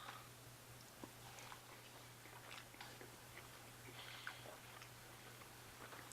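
A person quietly chewing a bite of pulled pork, with faint scattered mouth clicks.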